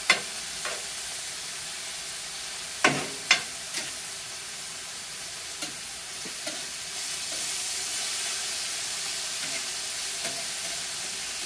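Seasoned chopped chicken sizzling on a steel griddle while a metal spatula stirs it, scraping and clicking against the plate. There are a few sharp clicks, two close together about three seconds in.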